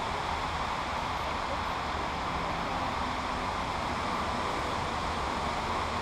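Steady rushing of flowing creek water, an even hiss with no separate events.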